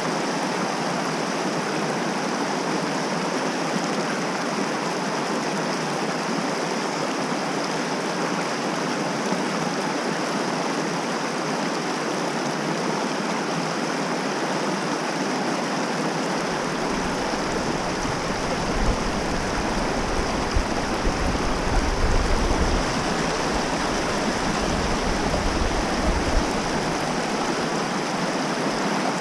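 Mountain trout stream running with a steady rush of water. A low rumble joins for about ten seconds in the second half.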